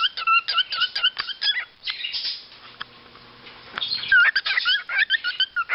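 A flock of cockatiels chattering in dense, rapid, short chirps. The calls drop away for about two seconds midway, then resume.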